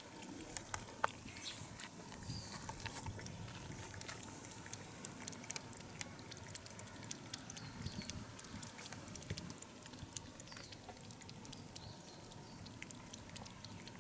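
Cats lapping water from a concrete basin of standing water: a run of quick, irregular wet ticks.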